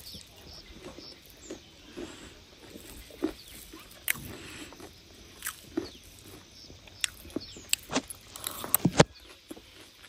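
Close-up eating of chatpate, a spicy puffed-rice snack: irregular crisp crunches and clicks of chewing and handling the snack.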